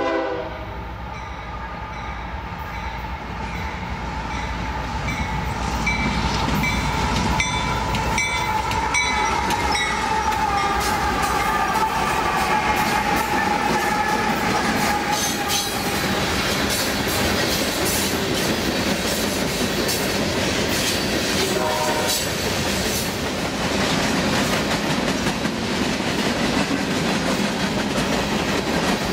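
Union Pacific freight train passing close by. A horn blast cuts off right at the start, then the diesel-electric locomotives rumble past with a high whine that slowly falls in pitch. After that comes the steady rolling clatter of freight car wheels on the rails, with a brief squeal about two-thirds of the way through.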